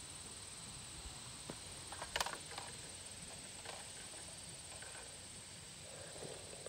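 Wooden stir stick swirling water in a plastic bucket, with faint splashing and a few light clicks, a short cluster of them about two seconds in, over a steady faint high-pitched hiss.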